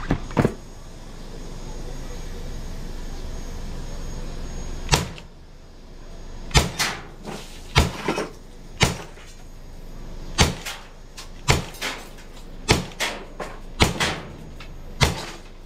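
Gas-powered Glock airsoft pistol firing a series of sharp single shots. Two shots come at the start, then after a pause of about four seconds the shots come roughly once a second, several in quick pairs.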